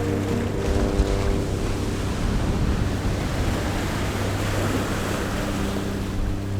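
Ocean waves washing in, the surge building to a peak around the middle and easing off, over soft background music with long held notes.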